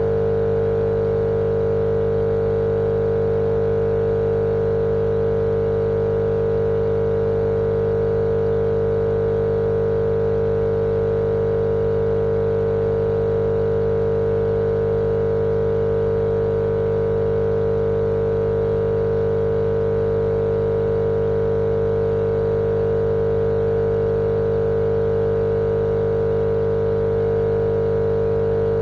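Steady, unchanging machine-like hum with a strong mid-pitched tone over a low drone, looped as sleep noise for babies.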